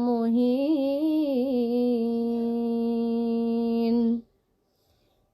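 A woman's voice reciting the Quran in melodic tajweed, drawing out the verse-ending word "muhīn" on one long note. The note has a few ornamental turns in the first second and a half, then stays level and breaks off about four seconds in.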